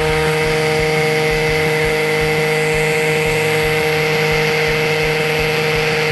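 Makita XGT HP001G 40 V cordless hammer drill/driver in hammer mode drilling into concrete with a 12 mm masonry bit. The motor and hammer action make a loud, steady buzzing whine at a constant speed, with no change in pitch.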